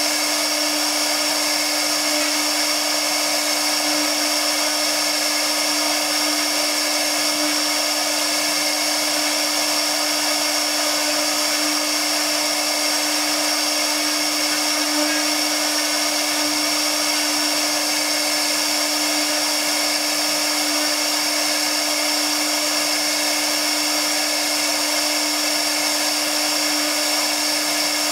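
CNC router spindle running at constant speed while its bit carves a relief into MDF board: a steady high whine over a lower steady hum and a hiss of cutting, unchanging throughout.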